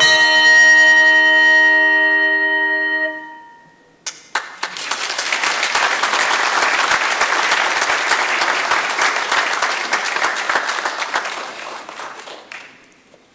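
A handbell choir strikes a final chord, several bells ringing together for about three seconds before it is damped. After a brief silence the audience applauds for about eight seconds, and the clapping dies away near the end.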